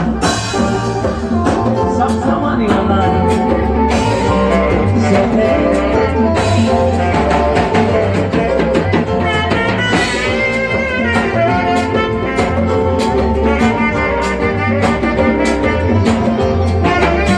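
Live dance band playing: saxophones over a drum kit and congas, with a steady beat and a few cymbal crashes in the first half.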